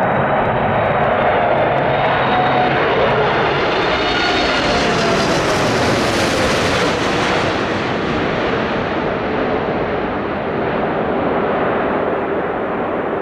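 Boeing 747-8's four GEnx turbofan engines on final approach, passing low overhead: a loud jet rush whose hiss grows brighter as it closes, peaks about six seconds in, then dulls as it moves away. Faint whining tones slide down in pitch as it goes past.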